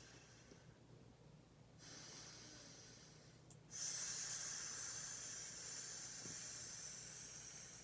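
A woman hissing like a cobra through her teeth in cobra pose: two long breathy hisses, the second starting about halfway through, louder and held for several seconds.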